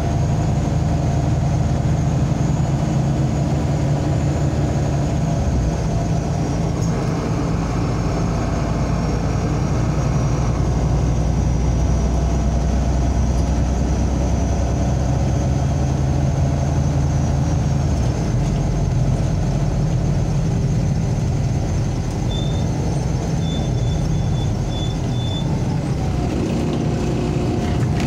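Interior of a MAZ-203 city bus under way: a steady engine drone with road noise, the engine note changing pitch twice, and a faint high whine above it. Near the end there are a few short, high beeps.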